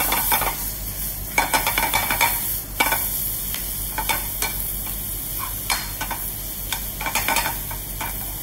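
Spinach, bacon and garlic sizzling in a frying pan with butter and soy sauce, while a metal spoon stirs and tosses them, scraping and clicking against the pan over and over.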